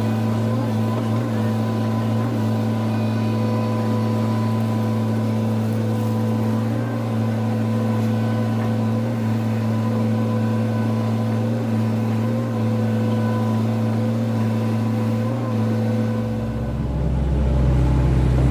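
Hydraulic excavator's diesel engine running steadily at working speed. About three-quarters of the way through it drops to a deeper, louder note as the engine takes on load.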